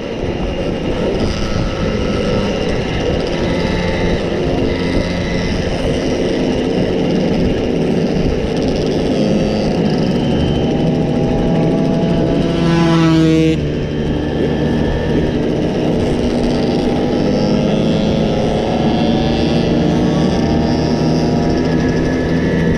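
Several Simson 50 cc single-cylinder two-stroke moped engines running together under way. About halfway through, one engine revs up, rising sharply in pitch, then drops off abruptly as the throttle closes or it shifts gear.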